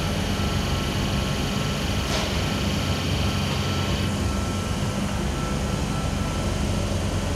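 An NSW TrainLink V-set double-deck electric train standing at the platform, its air-conditioning and auxiliary equipment running with a steady hum and a faint high tone that comes and goes.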